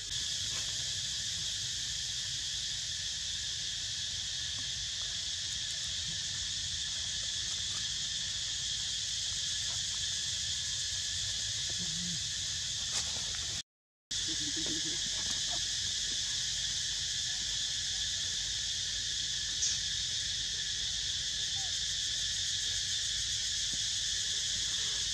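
Steady, high-pitched insect chorus that drones without a break, cutting to silence for a moment about 14 seconds in.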